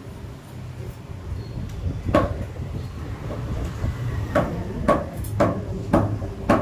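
Butcher's cleaver chopping beef on a thick wooden block: six sharp chops, one about two seconds in, then five in quick succession about half a second apart.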